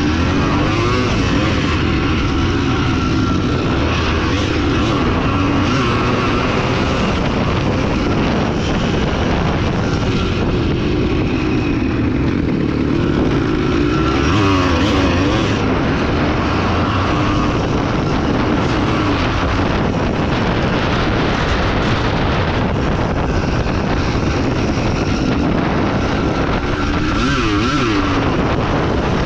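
Off-road motorcycle engine running while being ridden, its pitch rising and falling again and again as the throttle opens and closes, over a steady rushing noise.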